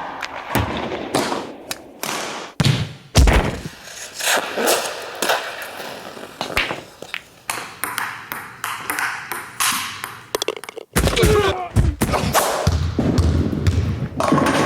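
A fast montage of sports sound effects: sharp hits, thuds and impacts one after another, with a ringing ping that holds for a couple of seconds among them. The sound grows denser and busier near the end.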